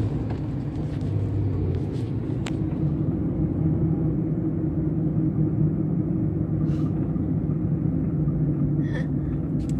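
Car cabin noise while driving: a steady low engine and road rumble, with a single light click about two and a half seconds in.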